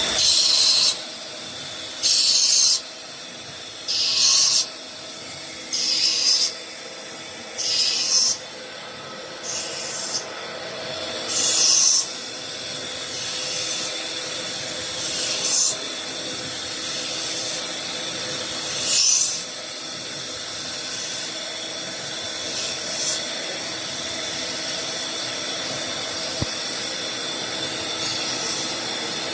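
CNC lathe cutting a single-start trapezoidal thread in a brass bar. A hissing cut comes about every two seconds, seven times, each under a second long, over the steady hum of the machine. After about twelve seconds the cutting noise turns steadier, with only a few fainter peaks.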